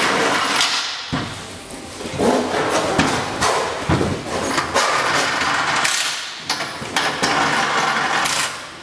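Large paper and plastic liner sheets crackling and rustling as they are handled in swells of a second or two, with several sharp knocks and thumps in between.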